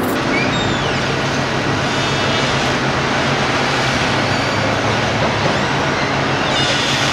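Steady street traffic noise: an even hiss of passing vehicles over a low, steady engine hum.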